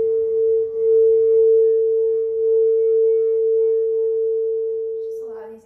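Crystal singing bowl ringing one steady, sustained tone that swells and wavers slowly in loudness. Near the end the tone dips sharply for a moment.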